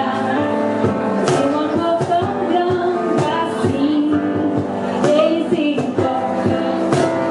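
Worship music with a singing voice over sustained instrumental chords and a light, steady beat.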